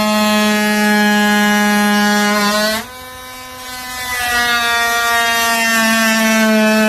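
KIMO 20V cordless oscillating multi-tool running with a steady, high buzzing hum, cutting into a baseboard. Its pitch lifts slightly just before it stops, a little under three seconds in. It starts up again and runs back up to speed about a second and a half later.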